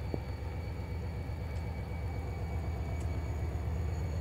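Distant diesel locomotive running with a steady low rumble, with a few faint ticks of raindrops hitting the phone.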